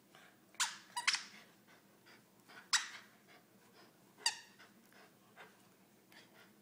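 A squeaky dog toy squeaked in short, sharp squeals as the terrier bites on it during play: about five squeaks, two of them close together about a second in.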